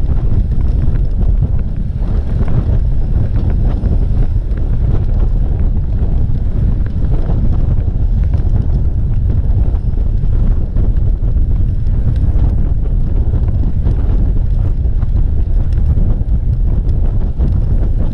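Wind buffeting the microphone of a camera on a road bike ridden at speed: a loud, steady low rumble throughout.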